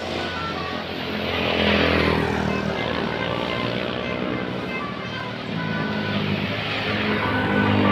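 Engine of a heavy road vehicle, such as a tour bus, running with a steady low drone, while a vehicle passes by with a swell of noise about two seconds in.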